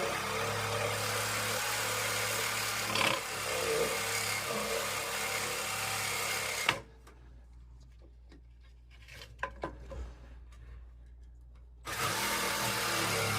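A motor running with a steady hum. It cuts off abruptly about seven seconds in, leaving a quieter stretch with a few knocks and clicks, then comes back about five seconds later.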